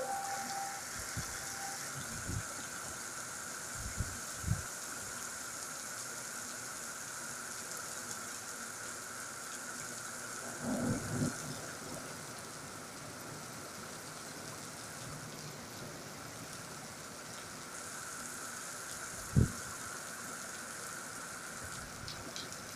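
Heavy cloudburst rain pouring steadily onto paving as a constant hiss. A few short, low thumps break through it, the sharpest about three-quarters of the way through.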